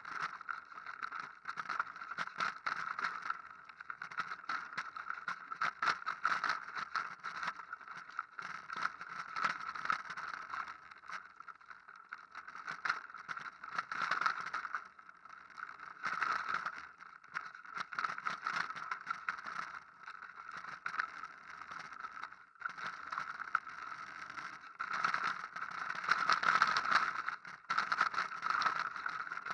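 Mountain bike rattling and clattering down a rocky slate trail, with a dense run of small knocks from the bike and tyres over stones and steps. The noise swells and dips with the terrain and is loudest a few seconds before the end.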